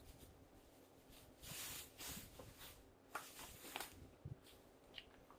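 Faint, scattered rustles and light clicks of packaged items being handled during unboxing.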